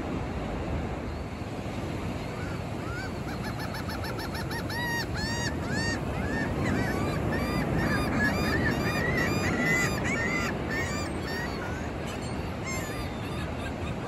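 Ocean surf washing steadily while gulls call in a rapid series of short, rising-and-falling cries, starting about three seconds in and stopping near the end.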